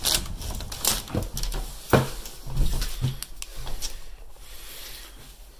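Footsteps and wooden knocks and scrapes as a person steps in through a doorway, with a sharp knock about two seconds in.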